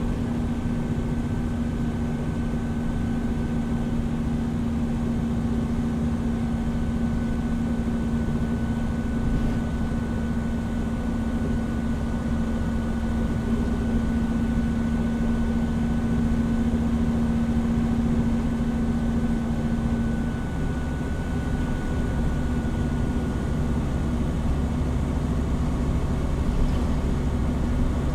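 Hino Rainbow HR (PB-HR7JHAE) route bus heard from inside the cabin while running, its engine and drivetrain giving a steady drone with a faint high whine above it. The engine note shifts about twenty seconds in.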